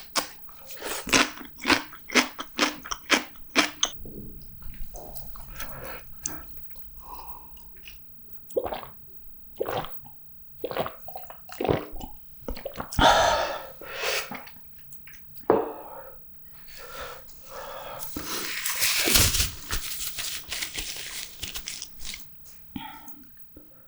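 Close-miked mouth sounds of a person eating noodles and fried-tofu rice balls: wet chewing and smacking clicks, a quick run of about three a second in the first few seconds, then scattered. A longer, noisier stretch of eating sound comes about three-quarters through.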